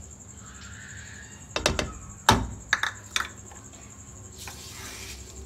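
Plastic measuring cup knocking against the pan as the last of the milk powder is tapped out: a cluster of sharp clicks, the loudest about two seconds in, with a soft hiss near the end.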